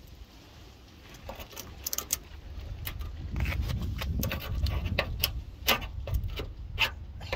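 A steel chisel scraping and chipping paint and rust off a car's steel rear quarter panel. It comes in irregular sharp scratches and clicks, sparse at first and coming thicker from about three seconds in, over a low rumble.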